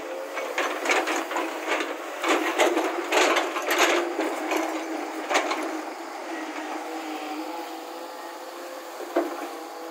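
JCB tracked excavator's bucket digging into a pile of loose broken rock, the stones clattering and knocking against the steel bucket over the diesel engine running. The clatter is heaviest in the first few seconds, then settles to a steady engine and hydraulic hum with one more knock near the end.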